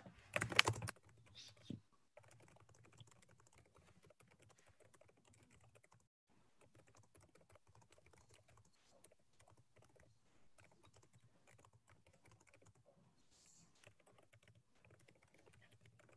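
Typing on a computer keyboard: a long run of light, irregular key clicks. About half a second in there is a short, louder knock or rustle.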